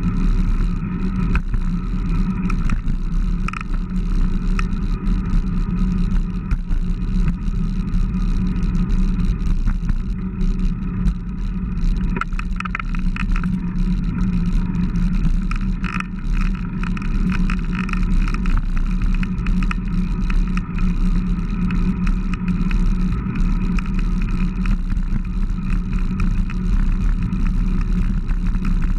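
Steady low rumble of wind buffeting a handlebar-mounted camera's microphone while a bicycle is ridden along the road.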